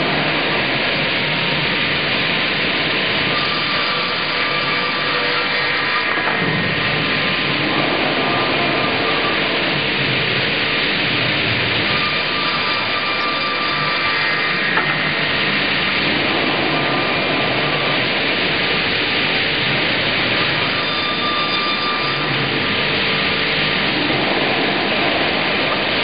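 StrojCAD D9 automated circular sawmill, its two saw blades set at 90 degrees, sawing a log carried through on the carriage: a loud, steady saw noise with faint steady whines over it.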